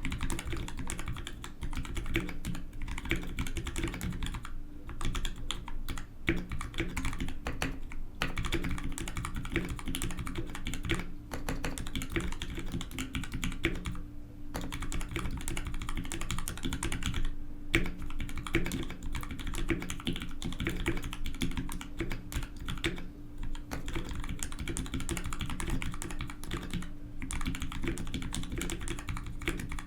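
Continuous typing on an ALF DC60 mechanical keyboard with GMK Coniferous keycaps and Gateron FF Yellow switches lubed with Krytox 105 and 205: a fast, dense run of keystrokes broken by a few brief pauses.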